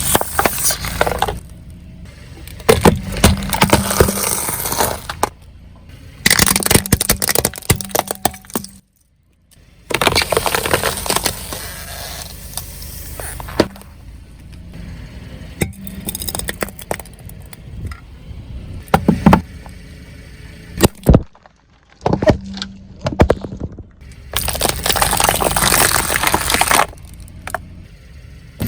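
Objects being crushed under a car's tyres: several separate bursts of loud cracking, crunching and breaking, with abrupt cuts between them.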